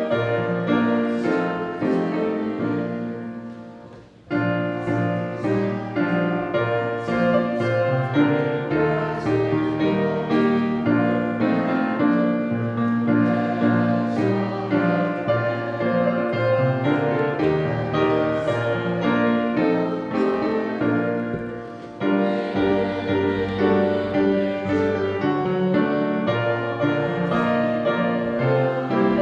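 A congregation singing a hymn with piano accompaniment, the music dropping away briefly twice, about four seconds in and again about twenty-two seconds in, between phrases.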